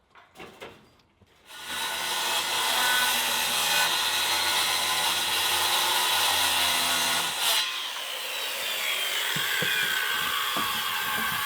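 A power tool cutting: it starts about a second and a half in and runs steadily, then about two thirds of the way through the sound changes to a rougher cutting noise with a falling whine that continues to the end.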